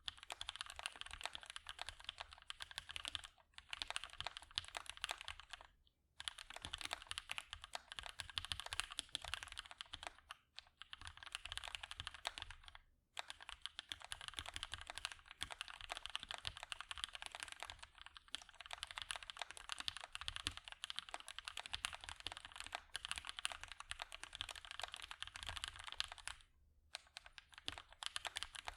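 Continuous fast typing on a custom mechanical keyboard with lubed and filmed Gateron Hippo switches on a POM plate and GMK keycaps: a dense stream of key clacks, broken by short pauses a few times.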